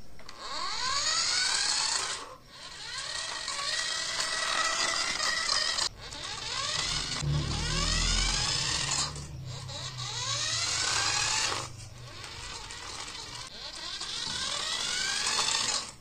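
Toy remote-control car's small battery electric motor and gears whining in about five bursts of two to four seconds as it is driven. Each burst rises in pitch as the car speeds up, with brief pauses between. A low rumble comes near the middle.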